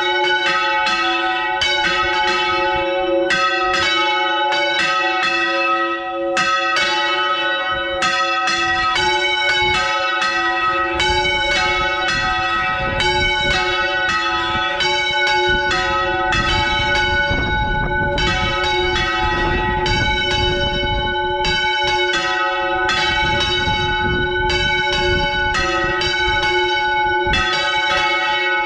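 Bronze church bells swung full circle on counterweighted wooden yokes (Valencian volteo). Their clappers strike in a steady run of loud strokes over a long ringing hum, with a low rumble joining from about ten seconds in.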